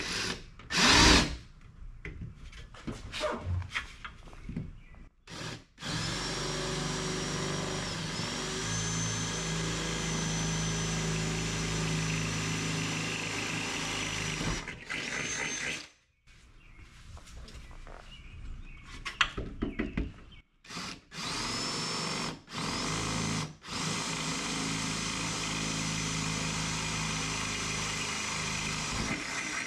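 Power drill boring mounting holes in a Jeep Cherokee's steel door, in two long steady runs of about ten seconds each with brief stops between. There is a sharp knock about a second in.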